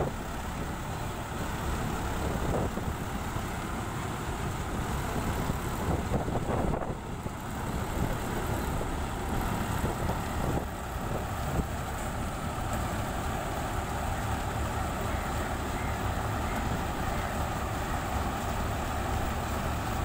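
Standard TSC-513 4x4 combine harvester running steadily while it drives through heavy mud in a rice paddy, its engine and machinery making an even, continuous noise.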